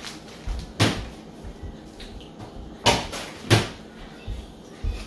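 Three sharp knocks or clacks in a kitchen: one about a second in, then two more half a second apart around three seconds in, with softer low thuds between.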